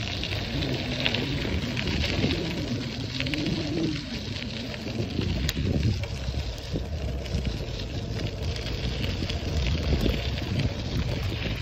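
Bicycle riding along a dirt trail: wind rumbling on the microphone and tyres rolling and crackling over the dirt. A wavering low tone sounds over the first four seconds.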